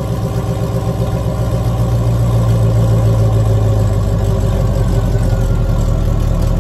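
C5 Corvette's 5.7-litre LS V8 on a stock cam, idling steadily through new Speed Engineering long-tube headers and stock mufflers, heard at the quad exhaust tips.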